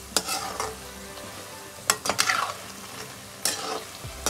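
Namkeen pieces deep-frying in hot oil in a metal kadhai, with a faint steady sizzle. A metal slotted spatula stirs and scrapes against the pan several times while the finished white batch is turned and lifted out.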